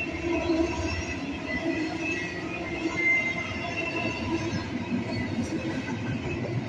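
Train rolling past with a steady rumble of cars on the rails and thin, high wheel squeals over it.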